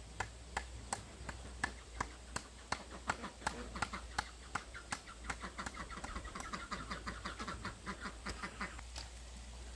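Animal calls: a long run of short, sharp notes, a few a second at first and then quicker, stopping near the end.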